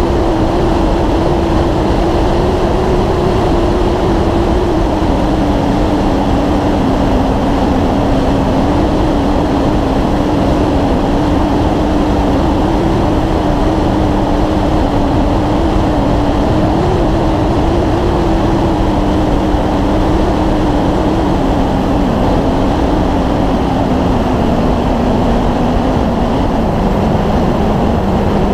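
Motorcycle riding at highway speed: heavy wind rush over the microphone with a steady engine hum whose pitch slowly sinks and then climbs again near the end.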